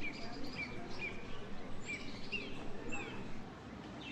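Finches chirping, a string of short falling chirps every half second or so, over a low steady background noise; the chirping thins out near the end.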